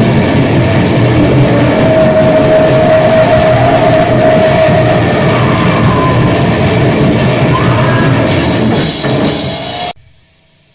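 Grindcore/noise music, loud and dense from top to bottom, that cuts off abruptly near the end into near quiet.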